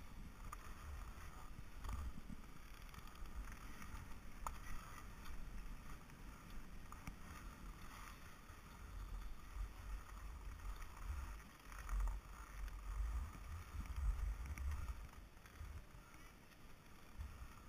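Hiss and scrape of gliding over packed snow down a ski run, with wind rumbling on an action camera's microphone, heaviest in the second half.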